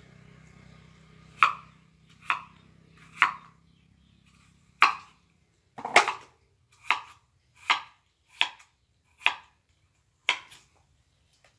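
Knife chopping on a cutting board: about eleven sharp separate chops, roughly one a second and slightly uneven.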